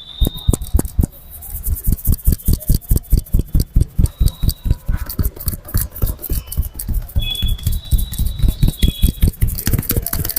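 Rapid rhythmic thumps of a barber's hands striking the head in a percussive massage, about five dull blows a second.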